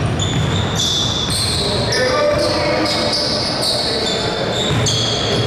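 Indoor basketball game: sneakers squeaking repeatedly on the court in short high chirps, with a ball bouncing and players' voices.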